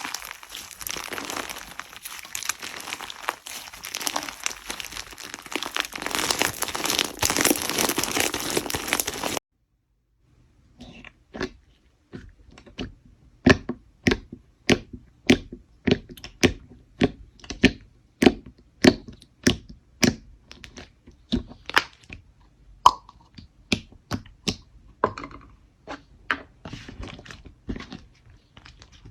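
Slime being worked for ASMR: for about nine seconds a dense, continuous crunchy crackling. Then it cuts off abruptly, and after a short pause comes a steady run of sharp pops, about two a second, as the slime is pressed.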